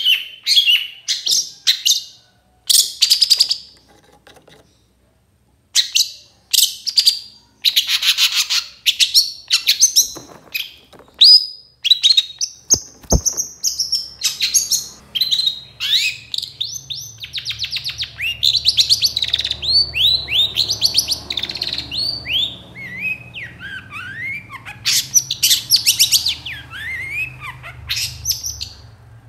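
Long-tailed shrike (cendet) singing loudly: harsh chattering bursts at first, then a fast run of varied gliding notes that rise and fall.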